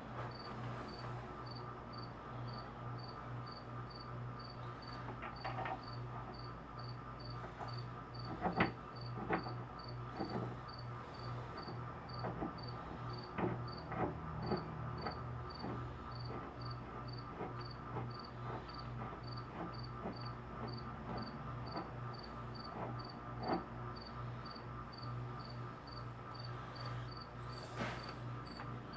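A cricket chirping at an even pace of about two or three chirps a second over a steady low hum, with scattered light metallic clicks and taps as small lathe headstock parts are handled and fitted by hand, the sharpest clicks in the middle stretch.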